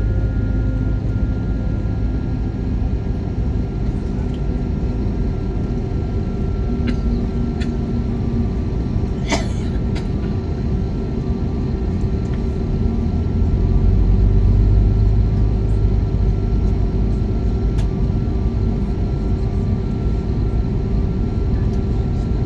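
Cabin noise of an Airbus A321neo on the ground during pushback and engine start: a steady low rumble with a steady whine, growing louder for a couple of seconds midway, and a single sharp click about nine seconds in.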